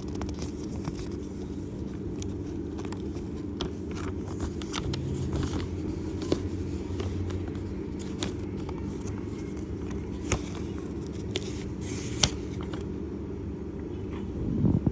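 Paper and packaging being handled: light scrapes, rustles and occasional sharp clicks over a steady low hum.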